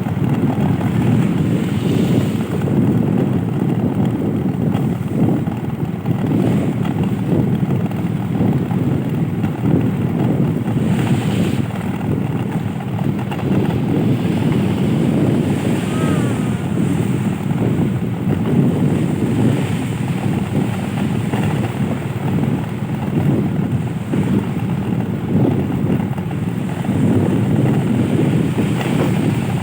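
A steady, loud low rumble that rises and falls unevenly, with no clear pitch.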